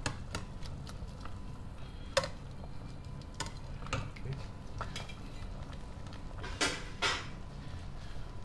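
Metal ladle knocking and scraping against the inside of a stainless steel pot while stirring mushrooms in stock: irregular clinks, the loudest about two seconds in and twice near seven seconds.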